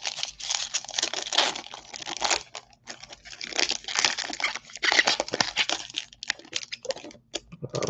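Foil wrapper of a Topps Bowman baseball card pack crinkling and tearing as it is pulled open by hand, in several spells of crackly rustling with short pauses between.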